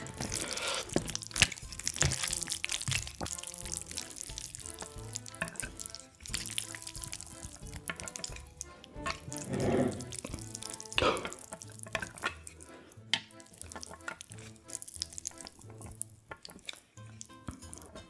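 Wet squishing of sauce-coated cold bibim-myeon noodles being lifted and stirred with chopsticks in a cast iron pan, with light clicks, over faint background music.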